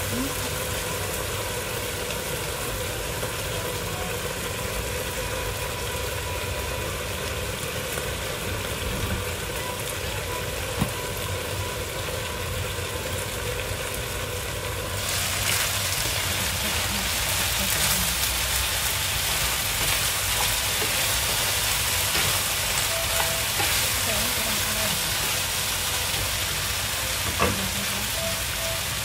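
Broccoli and beef sizzling in a frying pan on a gas hob, a steady hiss under a glass lid. About halfway through, once the lid is off, the sizzle turns louder and brighter, with a couple of sharp clinks.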